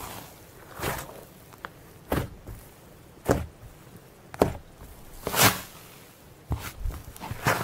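A person sniffing hard through the nose close to the microphone: about seven short, noisy sniffs, roughly one a second, the loudest a little past halfway.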